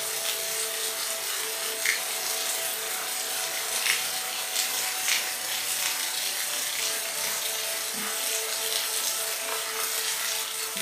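Steady rain falling, an even hiss with a few sharper drop taps now and then, over a faint steady drone of held tones.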